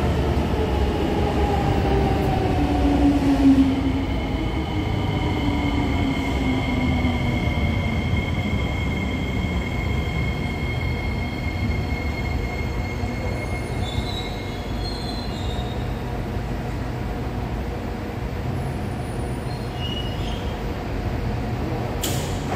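Kawasaki Heavy Industries–Nippon Sharyo C751B metro train pulling into the station and slowing to a stop. Its motor whine falls in pitch over the first several seconds over a steady rumble, with high-pitched steady squealing from the wheels and brakes. A brief sharp noise comes near the end as it halts.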